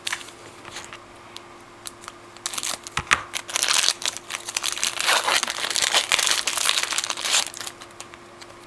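A 2009 SP Signature Edition football card pack's wrapper being torn open and crinkled. There are scattered clicks at first, a sharp snap about three seconds in, then dense crinkling that goes on for about five seconds before stopping.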